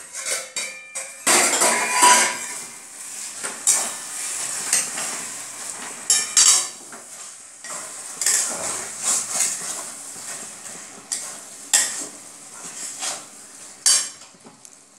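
A metal spatula scraping and clinking against an aluminium kadai as a thick bottle gourd and prawn curry is stirred, in many short, irregular scrapes and knocks. At the start a metal lid clatters as it is lifted off the pan.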